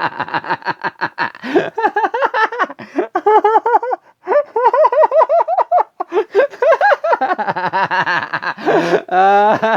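A person laughing in long, high-pitched fits: quick runs of rapid 'hee-hee' pulses, broken by short pauses for breath, with a brief break about four seconds in and again at about six seconds.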